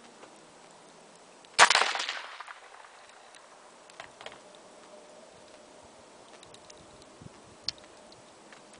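A single rifle shot fired from a shooting bench, with a short echoing tail that dies away over about a second. A few faint clicks follow, and a sharp tick near the end.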